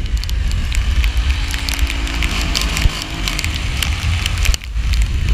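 Onboard sound from a 70cc racing scooter on a wet track: heavy wind buffeting on the microphone and a constant crackle of rain and spray hitting the camera. The small engine's note is heard faintly beneath.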